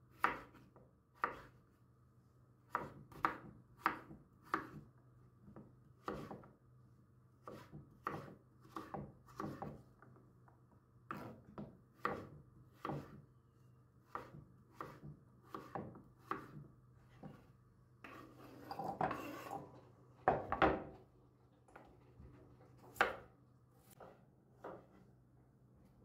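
Kitchen knife chopping food on a wooden cutting board: a long series of sharp taps, about one or two a second, with a brief scraping stretch about two-thirds of the way through.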